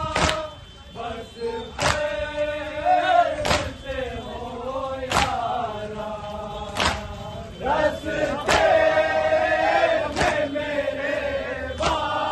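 Group of men chanting a Muharram nauha (lament) together, with a sharp slap of matam, hands beating on chests in unison, about every 1.7 seconds.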